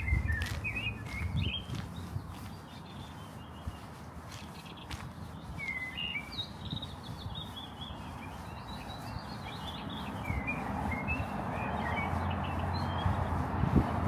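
Small songbirds chirping and twittering in quick, broken phrases, with a broad rushing noise building over the last few seconds.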